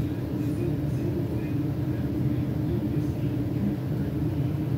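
A steady low rumbling hum, unchanging throughout.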